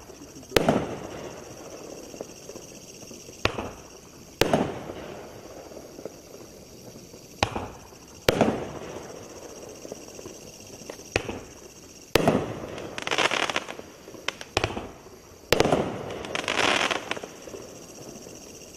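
Nine-shot 200-gram consumer firework cake firing shot after shot, a pair of sharp bangs about a second apart every three to four seconds: each tube's lift thump followed by its shell bursting, with a rumbling tail. The last two shots end in about a second of crackling.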